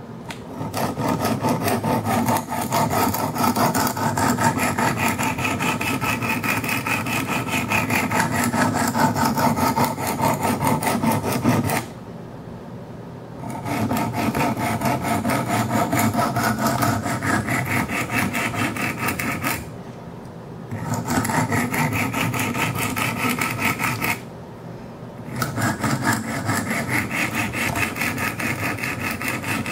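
80-grit diamond stones of a Wicked Edge sharpener scraping along the 14C28N steel edge of a Kershaw Skyline knife, reprofiling the edge to a 15-degree bevel. The rasping runs continuously and stops briefly three times: about twelve seconds in, around twenty seconds and around twenty-four seconds.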